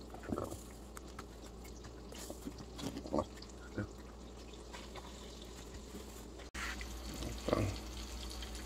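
A few faint taps and handling noises as fish fillets are shaken with seasoning on a wooden cutting board, then, from about six and a half seconds in, a steady sizzle of white bass fillets frying in melted butter in a pan.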